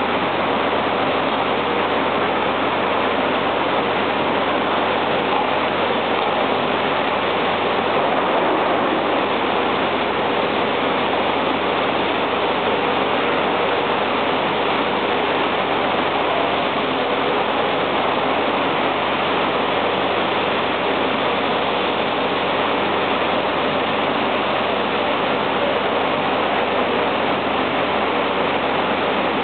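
Steady, loud rushing roar of cast iron foundry machinery, with a faint low hum under it.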